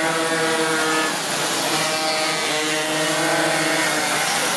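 Several minimoto racing pocket bikes buzzing round the circuit, their small high-revving engines overlapping and rising and falling in pitch as riders accelerate out of the bends, with one revving up near the end.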